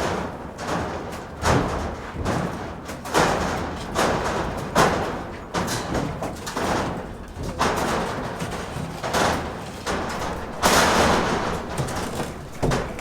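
Construction work: a run of irregular knocks and scrapes, about a dozen, roughly one a second.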